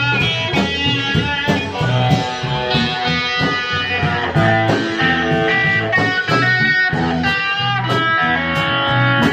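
A live blues band plays an instrumental passage without vocals: electric guitar over bass guitar and a steady drum beat.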